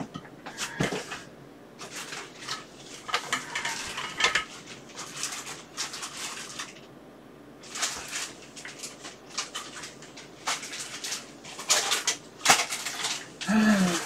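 Rummaging through a pile of cables and gear: hard plastic and metal items clattering and rattling as they are moved about, in irregular clicks and knocks.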